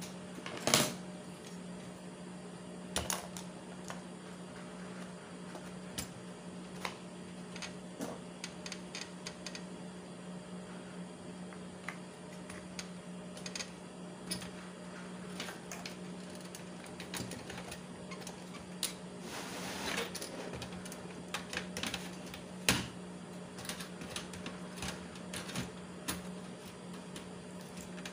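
Irregular clicks and knocks of computer hardware being handled and fitted: plastic connectors, a graphics card and the metal case, with a few sharper knocks and a longer scraping rustle about two-thirds through. A steady low hum runs underneath.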